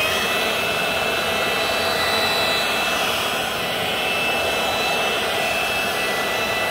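Milwaukee M18 cordless electric blower running on its slow setting: a steady fan whine over a rush of air. The motor reaches speed right at the start.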